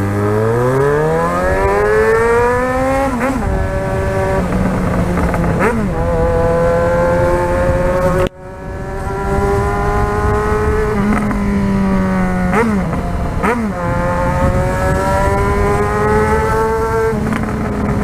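Yamaha XJ6 inline-four motorcycle engine through a de-baffled (straight-piped) exhaust, accelerating through the gears. The pitch climbs in each gear and drops at each shift, with a few quick throttle blips in between.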